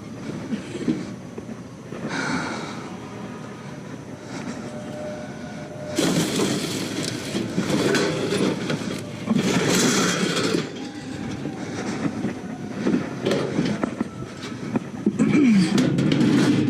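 Large metal appliance being slid and shoved into a minivan's cargo area: irregular scraping, rattling and rumbling, loudest in two stretches, about six seconds in and again near the end.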